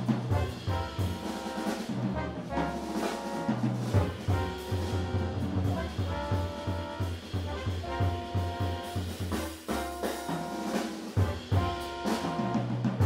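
Jazz quintet playing: saxophone, trumpet and trombone hold notes together in repeated phrases over bass and drum kit.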